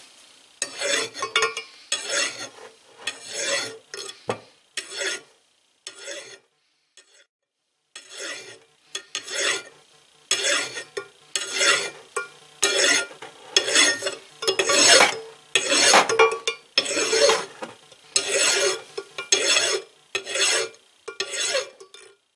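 A big flat file rasping stroke after stroke across a steel crankshaft journal, hand-filing away the ridge worn in where the bearing ran. About three strokes every two seconds, with a short pause about a third of the way in.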